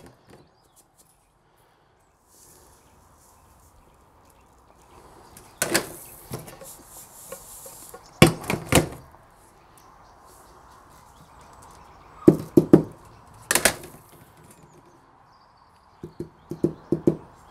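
Metal laboratory test sieves being handled: their rims knock and clink against each other several times, with a faint rustle of sand shifting in the mesh between. Near the end there is a run of quick taps as graded sand is knocked out of a sieve onto paper.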